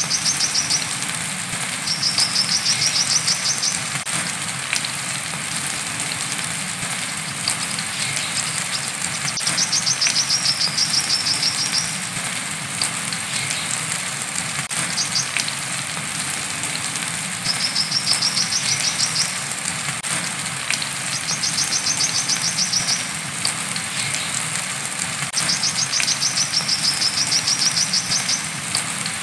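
Brown-throated sunbird singing its 'wiceh' song: short, rapid, high trills, six phrases each lasting one to three seconds, several seconds apart, over a steady hiss of rain.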